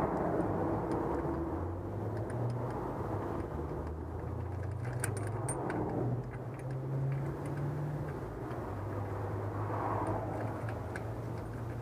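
Low, steady mechanical hum in the background, with a few faint light metal clicks about five seconds in from small parts and tools being handled.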